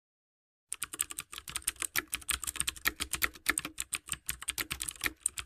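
Computer keyboard typing sound effect: a quick, uneven run of key clicks, starting just under a second in, laid under text being typed out on screen.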